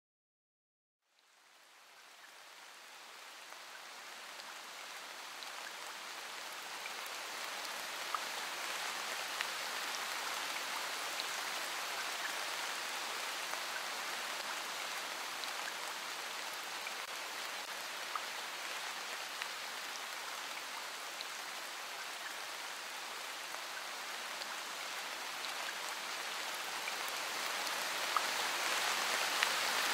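Steady rain: an even hiss of falling rain with now and then a sharper drop. It fades in about a second in, grows over the next few seconds and swells a little near the end.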